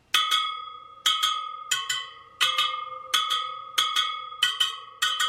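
Motorcycle wheel spokes pinged one after another, each giving a sharp metallic ring that fades, mostly in quick pairs about every three-quarters of a second. The ring is a tension check: evenly tight spokes give the same high-pitched ping, and a loose one sounds dead.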